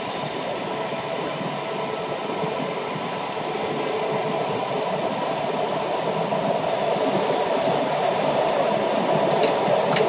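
Shinkansen bullet train running, heard from inside the carriage as a steady rush of running noise. It grows a little louder from about four seconds in, with a few sharp clicks near the end.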